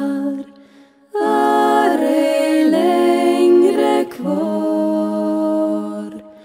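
Swedish women's a cappella vocal group singing wordless held chords in close harmony. A chord fades out, and after a second's pause two long chords follow, with inner voices gliding between notes; the last chord fades away near the end.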